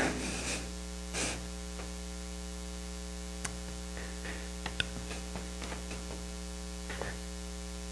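Steady electrical mains hum, with a few faint short clicks over it.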